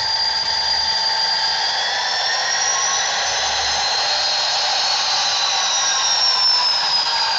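A model SD40 diesel locomotive's onboard sound decoder playing diesel engine sound with a high turbo-style whine. The whine rises slightly in pitch as the model moves off and eases back down near the end. It is heard through a small speaker over a video call.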